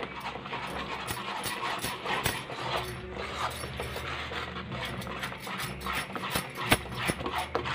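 A metal spoon beating and stirring thick papaya halwa paste in a steel kadai, clicking and scraping against the pan many times as two eggs are beaten in. A steady low hum runs underneath.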